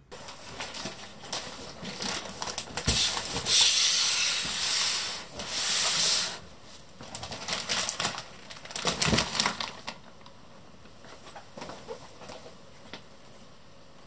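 Packaging being handled: rustling and rubbing noises with a few light knocks, loudest for a couple of seconds in the middle, then only a few faint taps near the end.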